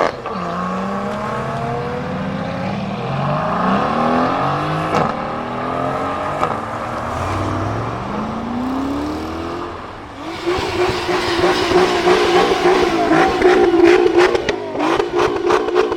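Supercar engines accelerating hard, the pitch climbing and dropping back with each upshift several times over. About ten seconds in, a louder engine comes in and holds steady high revs, with a run of sharp cracks near the end.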